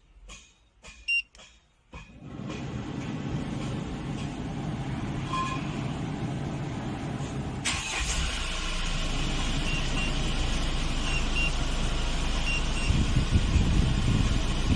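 Hyundai Porter II truck's engine starting under the remote starter about two seconds in, after a few short clicks and beeps, then running steadily. Its low rumble grows heavier near the end.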